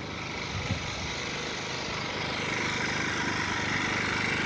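A small engine running steadily, growing a little louder toward the end.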